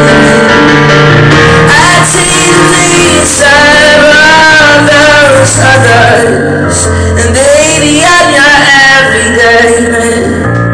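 A man sings over keyboard chords in a live solo performance. His voice comes in about two seconds in with long, bending, sliding notes and drops out near the end, leaving the keyboard chords.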